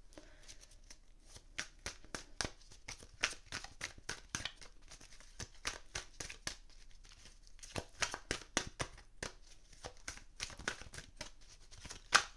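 Tarot cards being shuffled by hand: a dense, irregular patter of short card clicks and slaps that goes on throughout.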